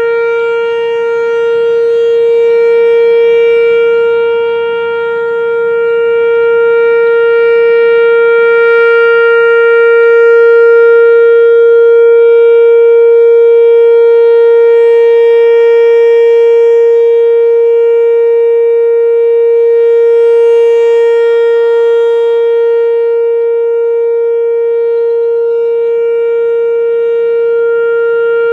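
Whelen WPS-3016 electronic outdoor warning siren sounding its steady alert tone: one unbroken pitch held throughout, its loudness slowly easing and swelling as the oscillating head turns.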